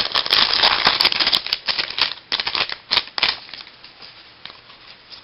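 Trading-card pack wrapper crinkling and tearing open, a dense crackle for about three seconds, then a few scattered clicks of cards being handled.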